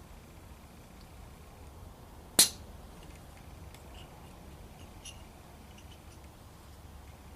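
A single sharp knock about two and a half seconds in, over a faint steady low hum, followed by a few faint small ticks.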